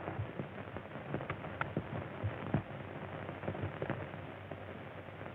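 Surface noise of an old optical film soundtrack: steady hiss with a low hum and scattered crackles and pops, with no dialogue or music.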